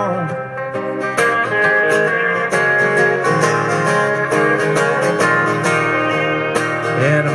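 Several acoustic guitars playing an instrumental passage of a country-folk song, chords strummed and notes picked together with no singing.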